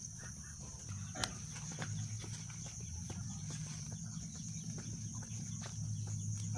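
Machete cutting through the stems of leafy garden greens: a run of short sharp cuts, the loudest about a second in. A steady high insect buzz runs underneath.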